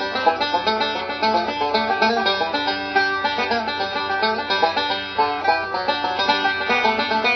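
A new resonator banjo picked solo in bluegrass style: a fast, steady stream of plucked notes.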